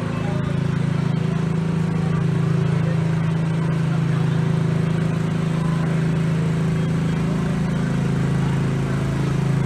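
Engine running at a steady idle, a low even hum that holds its pitch throughout.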